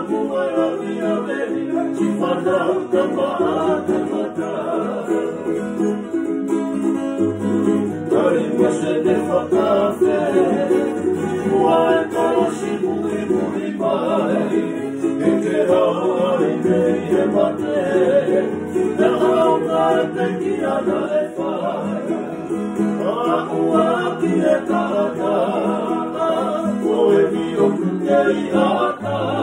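Acoustic guitars strummed while men's voices sing a song together in harmony.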